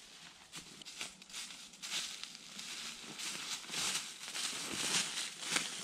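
Footsteps in rubber boots crunching through dry leaf litter and brush, irregular and growing louder from about two seconds in.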